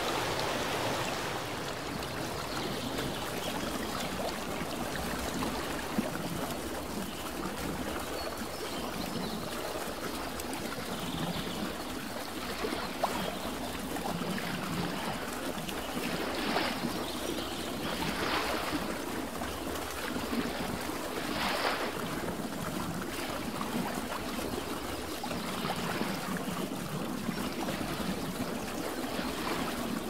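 Stream water rushing and splashing over rocks: a steady wash of water noise, with a few brief louder splashes in the second half.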